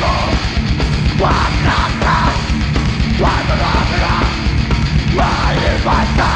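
Live metal band playing loud, dense music at full volume, a continuous wall of distorted instruments and drums.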